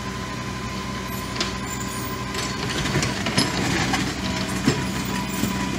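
Rollback tow truck's engine running steadily, with a few sharp knocks about a second and a half, three and nearly five seconds in.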